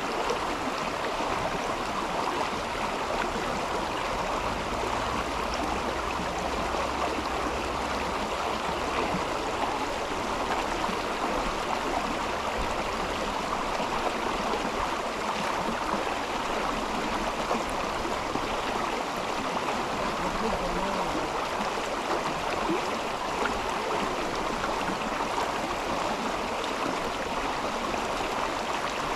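Mountain river flowing over stones, a steady rushing and babbling of water.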